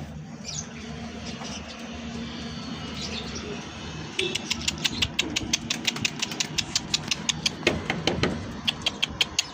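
A steady low engine-like hum, with a fast series of sharp clicks, about four to five a second, starting about four seconds in and running on.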